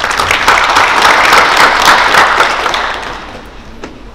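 Audience applauding, loud at first and dying away about three seconds in.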